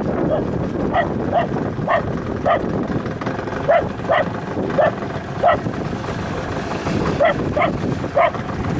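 A small dog barking in short, high yips, about two a second with a brief pause past the middle, over steady wind and water noise.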